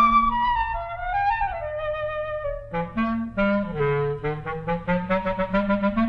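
Film score led by woodwinds: a few held notes that slide in pitch, then, about three seconds in, a run of quick, short, bouncy notes over a low bass line.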